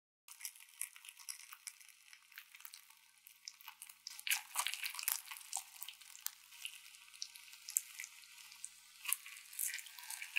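Toasted cheese and vegetable sandwich being torn apart by hand: the crisp toasted bread crackles and the soft, cheesy filling squelches in many small sharp ticks. These grow busiest about four seconds in and again near the end.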